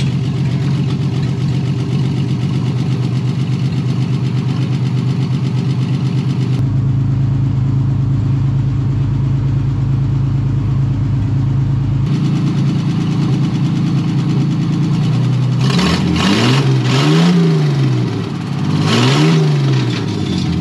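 1953 Chevrolet 5700 cab-over truck's inline-six engine, freshly revived after decades of sitting, idling steadily and sounding super healthy. Near the end it is revved up and back down twice.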